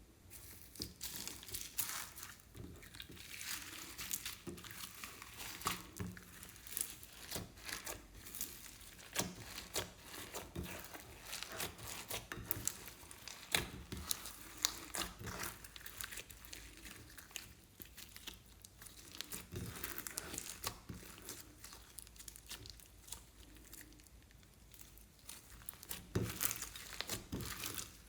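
Slime being kneaded and stretched by hand, giving dense, irregular crackling and small popping clicks.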